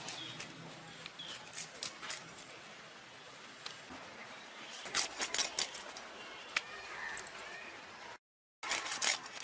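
Boal fish being cut into steaks on a boti blade: a series of short sharp cutting clicks and knocks, coming thickest about five seconds in and again near the end.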